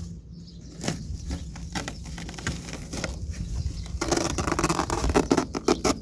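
Old rug being ripped out of a utility cart by hand, with a run of crackling tearing and rustling that gets denser and louder over the last two seconds.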